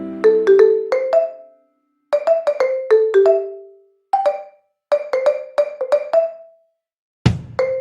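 Background music: short melodic phrases of bright struck notes, each phrase broken off by a brief pause. A steady beat with a low kick drum comes in near the end.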